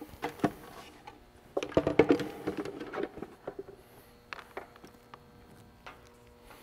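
Handling noise of a transducer cable and a hard plastic sonar pod: scattered clicks and knocks, with a busier stretch of rustling and tapping about a second and a half in, then only a few faint ticks.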